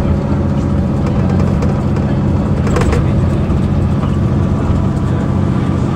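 Mercedes-Benz CapaCity articulated bus's 12-litre OM 457 hLA inline-six diesel idling steadily while the bus stands at the stop. A short burst of hiss comes about three seconds in.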